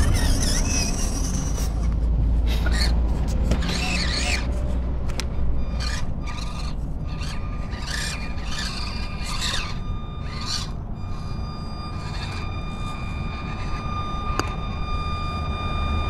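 Small electric motor and gears of a 1/24-scale RC rock crawler whining as the truck crawls over rock. The whine is steady in the second half, and earlier there is intermittent scraping and rubbing.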